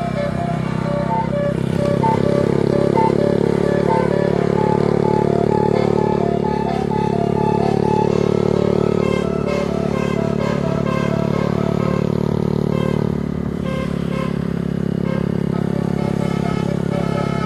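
A bus telolet horn plays a melody of short notes stepping up and down in pitch over the steady drone of a bus engine. The engine drone swells about two seconds in and eases off later.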